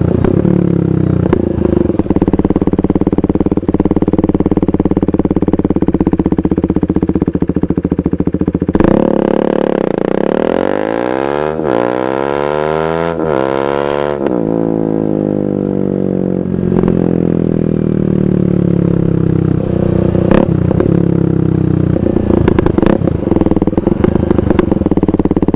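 2015 KTM 390 Duke's single-cylinder engine running through a KO Lightning aftermarket exhaust, steady at first. About nine seconds in it revs up, rising in pitch through a few quick gear changes, then settles back to steady running.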